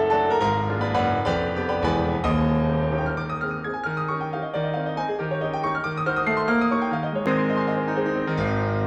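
Background music led by piano, with a steady succession of sustained notes and chords.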